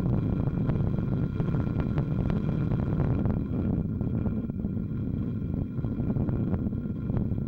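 Road and wind rumble of a moving car, picked up by a microphone inside a polycarbonate enclosure on the car's roof, with many small knocks and rattles throughout.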